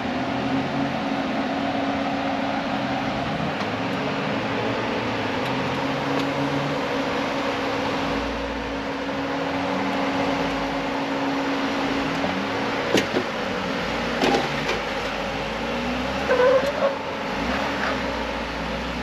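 Jeep Wrangler Rubicon engine running steadily as it crawls up a sandstone rock ledge, with a deeper rumble from about eight seconds in as it works onto the climb. A few sharp knocks come in the second half as it climbs onto the rock.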